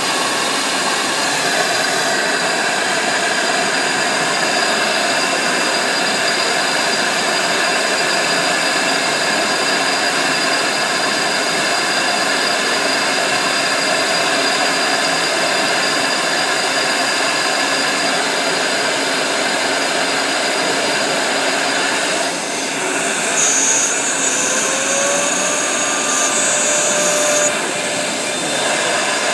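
JWEI RC-series computerised flatbed cutting machine running as it cuts 1.5 mm PVC board: a loud, steady whine and rush from its motors and cutting head. About 22 seconds in the sound shifts: a tone slides upward and holds, and a high whistle sounds for a few seconds.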